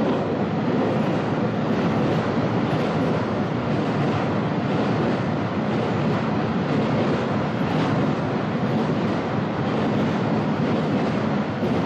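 Container freight train's wagons rolling steadily past, a continuous noise of steel wheels on rail.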